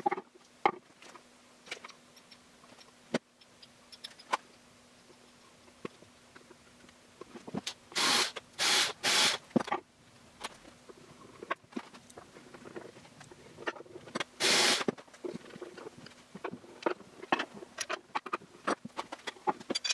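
Scattered light taps and clicks of a cast iron pull handle and screws being handled on a wooden box lid, with short noisy scrapes: three close together about eight seconds in and one more about fourteen seconds in.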